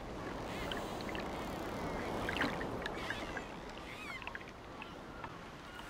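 Ocean surf washing up onto a beach, the wash swelling a couple of seconds in, with short bird calls chirping over it.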